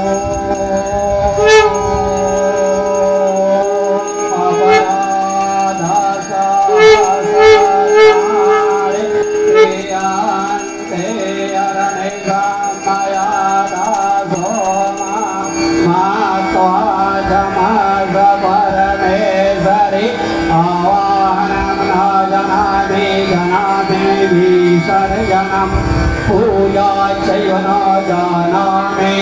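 Conch shell blown in long held notes, with several ringing bell strikes, over Indian devotional music with a steady drone and tabla; after about ten seconds the conch stops and the music goes on alone.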